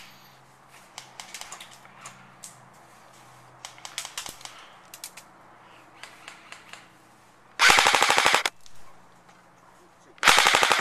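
JG G3 electric airsoft rifle firing two rapid full-auto bursts: one of about a second roughly three-quarters of the way in, and a shorter half-second burst near the end. Fainter scattered clicks and snaps come before them.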